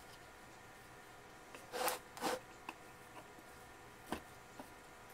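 Trowel and gloved hands digging in a pot of potting soil: two short scrapes close together about two seconds in, then a faint tap about four seconds in.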